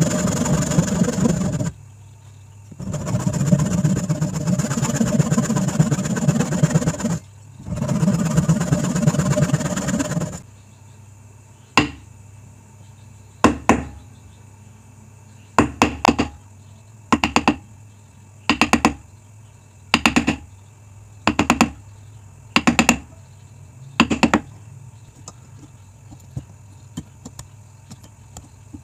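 Band saw cutting kerfs into a wooden board, in three passes with short pauses. About ten sharp knocks, roughly a second apart, follow as a chisel chops out the waste between the kerfs.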